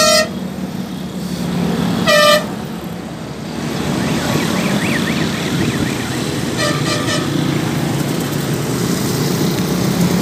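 Road traffic on a bridge: steady engine and tyre noise, with a vehicle horn honking once about two seconds in and three quick toots of a horn a little past the middle.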